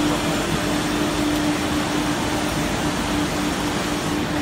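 Steady machine hum with one constant tone running through it, from a WoodMaster WM-4CNC tenoning machine running.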